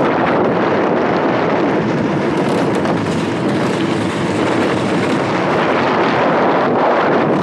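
Wind rushing over the camera microphone together with the rumble of a gravity racer's small hard tyres rolling fast down rough asphalt, a steady noise with no engine in it.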